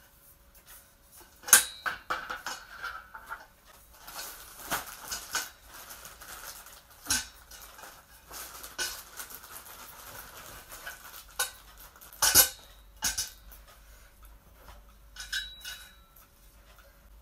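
Metal tubes of a keyboard X-stand clinking and knocking together as they are handled and fitted, in scattered clanks, the loudest about a second and a half in and again about twelve seconds in.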